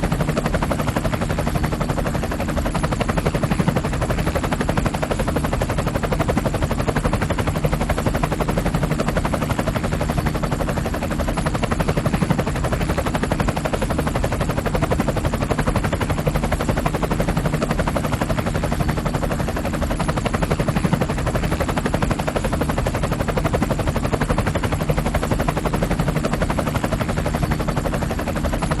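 Helicopter sound effect from the Voice Changer Plus app: a steady, rapid rotor chop that keeps an even pace and loudness.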